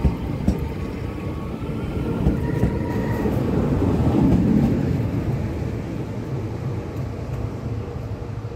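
Regional multiple-unit train running past along the platform: a steady rumble of wheels and running gear. It swells as the last car goes by about four seconds in, then fades as the train moves away.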